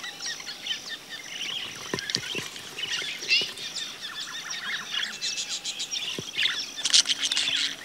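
Wild budgerigars chattering: quick chirps and warbles that come thickest in a brief flurry near the end.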